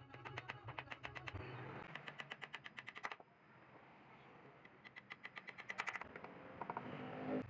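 Rapid mechanical clicking at about eight clicks a second: one run for about three seconds, then a second, shorter run about five seconds in, with a single thump near the end.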